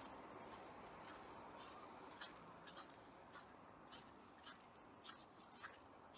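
Faint footsteps of a person walking on a snow-covered pavement, a little under two steps a second, each a short crisp crunch, becoming more distinct from about two seconds in as the low background noise fades.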